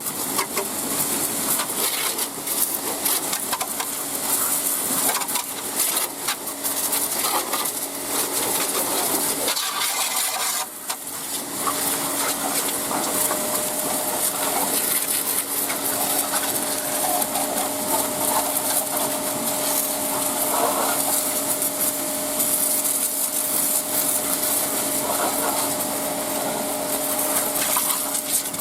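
Pressure washer running steadily, the motor's hum under the hiss of the water jet, with a brief drop about ten seconds in.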